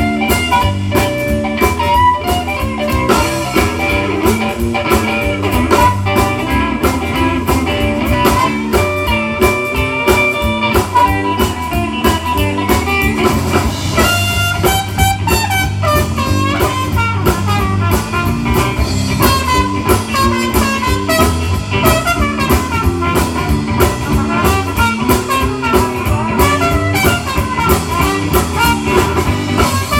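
Live swing band playing an instrumental passage with a steady beat: electric guitar, trumpet, saxophone and drum kit.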